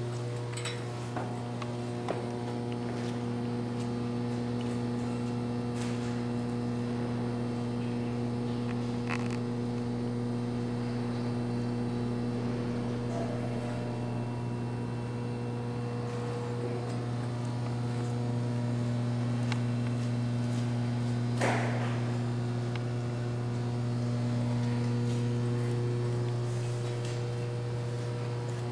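A steady low drone with a set of higher overtones that come and go slowly. A single short sharp sound cuts across it about twenty-one seconds in.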